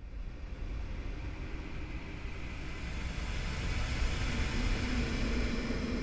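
Dark ambient horror drone: a steady low rumble with hiss over it, starting abruptly. A low hum tone comes in about halfway through and holds.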